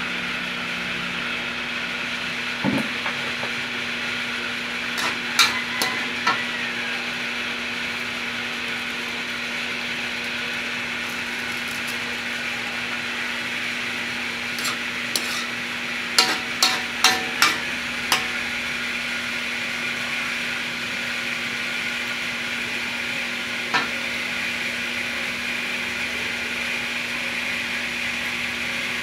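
Banana heart and other sisig ingredients sizzling steadily in an aluminium wok, with a metal ladle stirring and now and then clinking against the pan, including a quick run of five taps a little past the middle.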